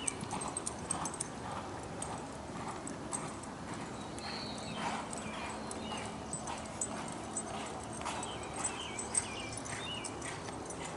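Hoofbeats of a reining horse loping on a soft dirt arena: faint, uneven thuds on the dirt.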